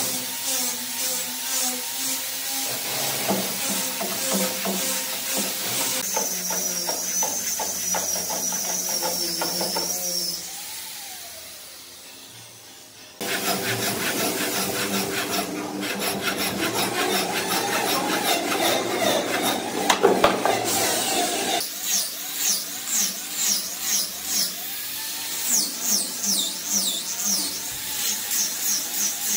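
Woodworking tools working wood across several short cuts, including a steady high whine for a few seconds. Around ten seconds in the sound fades away, then comes back abruptly about three seconds later.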